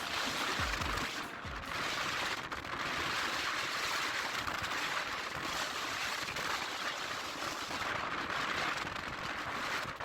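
Strong, cold nord-ost wind blowing over the microphone: a steady rushing noise with a few brief dips in the gusts.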